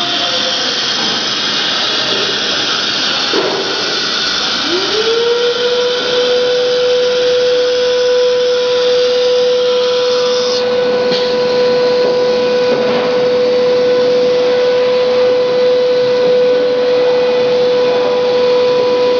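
Spindle of an ATC CNC router spinning up about four seconds in, its whine rising and then holding at one steady high pitch. A steady rushing noise runs underneath.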